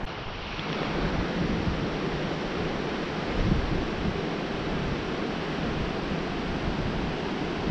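Wind gusting across the microphone over the steady wash of ocean surf.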